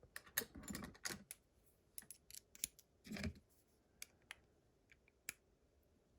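Faint, irregular small metal clicks and scrapes from lock-picking tools being fitted and worked in an Abus GDS pin-tumbler lock, with a duller knock about halfway through.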